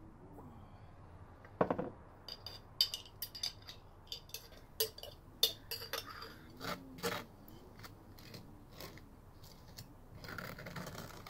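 A knife clinking and tapping in a small glass jam jar, a quick run of sharp clicks. Near the end comes a longer rasping scrape as the knife spreads jam across crisp toast.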